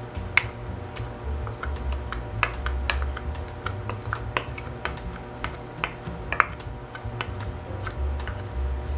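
Quiet background music with held tones, with scattered light clicks and taps over it.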